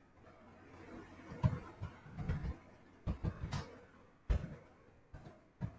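Computer keyboard typing: a run of short, irregular key clicks, about ten in all, starting about a second and a half in.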